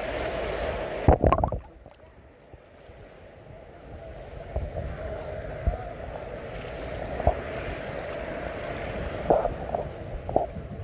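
Small sea waves sloshing and splashing against a phone held at the water's surface, with a louder splash just over a second in and a few smaller ones near the end. After the big splash the sound turns muffled, as with water over the microphone.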